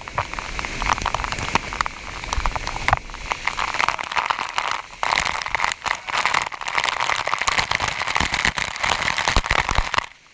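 Close, rushing and splashing water with a dense crackle of small splashes. It drops away sharply for a moment about halfway through and again near the end.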